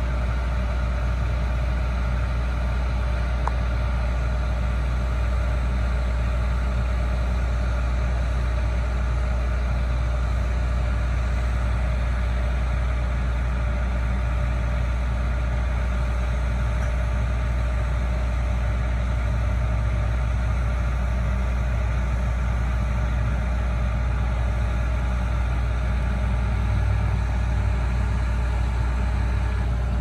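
John Deere 9760 combine and a John Deere tractor running steadily together: a constant deep diesel drone with a steady machinery hum over it.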